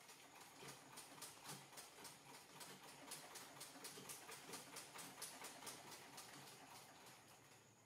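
Sewing machine running, faint and fast: an even, rapid clicking of stitches that fades out near the end.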